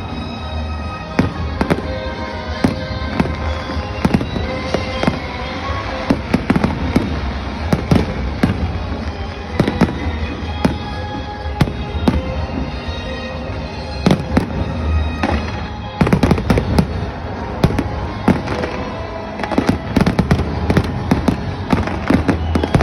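Aerial fireworks bursting in a dense, continuous barrage of sharp bangs and crackles, growing denser and louder about two-thirds of the way through. Music plays underneath.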